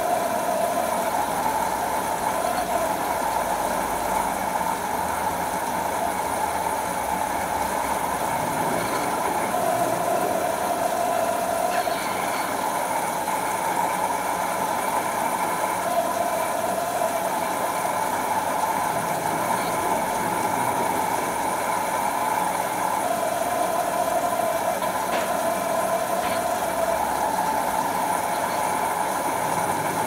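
LG Direct Drive front-loading washing machine tumbling a load of laundry, its drum turning steadily. A hum in the running sound comes and goes every several seconds.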